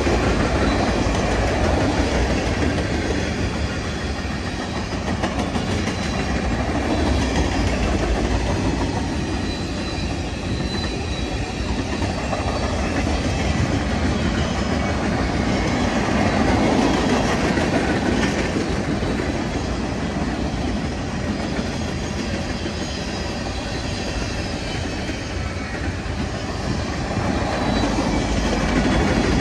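Freight cars of a mixed manifest train, covered hoppers and centerbeam flatcars among them, rolling past at speed: a steady noise of steel wheels on the rails.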